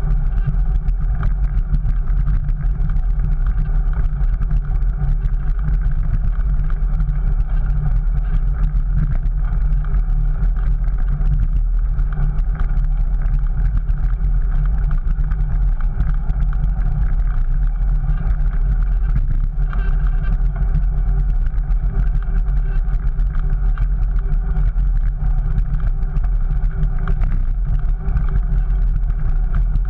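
Steady wind rumble and road noise on a bike-mounted GoPro rolling along a brick-paved street, heaviest at the low end.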